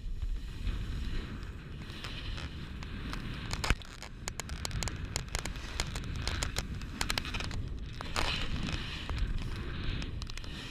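Skis scraping and sliding over snow, with a low rumble of wind buffeting the microphone and a run of small clicks and crackles. One sharper knock comes about three and a half seconds in.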